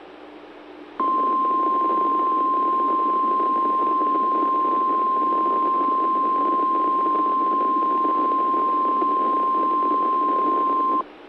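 NOAA Weather Radio 1050 Hz warning alarm tone: one steady tone that starts about a second in, holds for about ten seconds and cuts off sharply, over radio hiss. It is the alarm that switches on weather-alert receivers, sent here as the required weekly test.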